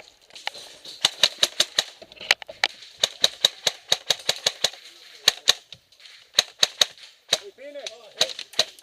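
Airsoft guns firing: a string of sharp snaps in short bursts and single shots, with runs of several shots a second.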